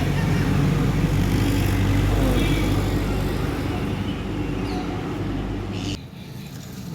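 A motor vehicle engine running steadily under general traffic noise, cutting off suddenly about six seconds in.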